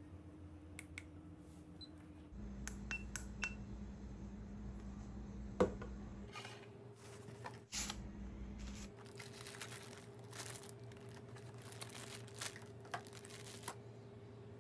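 Small clicks and knocks as a handheld tester and its box are handled, with one sharper click midway, then a few seconds of crinkling plastic as accessories in plastic bags are taken out, over a faint steady hum.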